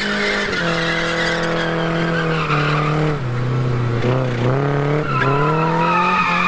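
Nissan 240SX S14 drifting: the engine is held at high revs, its pitch sagging over the first few seconds and climbing back as the throttle is worked, with the rear tyres squealing, loudest near the end.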